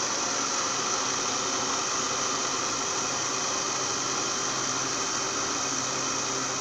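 Electric blender with a glass jar running steadily at speed, blending yogurt and water into a smooth liquid: an even motor whir with a constant hum.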